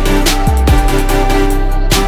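Electronic background music with a heavy beat: deep bass notes that drop in pitch, drum hits and sustained synth tones.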